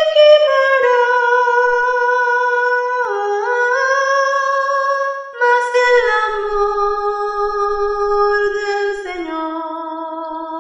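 A lone soprano voice, the first-voice choir part, sings long wordless held notes, sliding smoothly from one pitch to the next and settling lower near the end.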